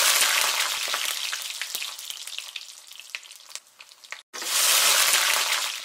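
Sizzling, crackling hiss like food frying in hot oil. It starts loud and dies away with scattered pops, cuts off for a moment, then swells up once more and fades again.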